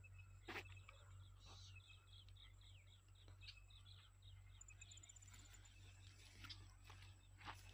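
Quiet outdoor near-silence: faint, quick, repeated high chirps from small wildlife through the first few seconds, with a few soft clicks, the sharpest about half a second in and another near the end.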